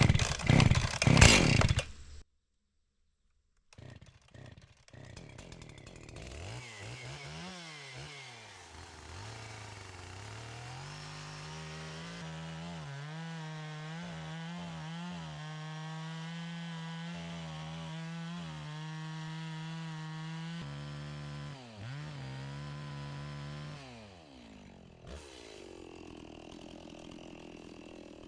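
Echo 670 two-stroke chainsaw with a 20-inch bar cutting through a large log. After a loud stretch that cuts off about two seconds in, the engine revs up and down, then holds a steady high speed through the cut. It dips briefly and drops back to a quieter idle near the end.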